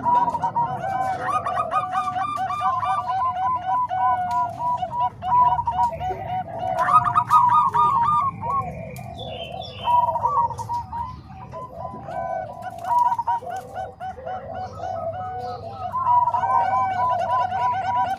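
Zebra doves (perkutut) cooing, several birds overlapping in runs of quick rolling notes, with a couple of short lulls.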